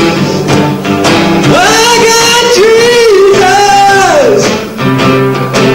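A man singing into a microphone over a strummed acoustic guitar, his long held notes sliding up and down in pitch.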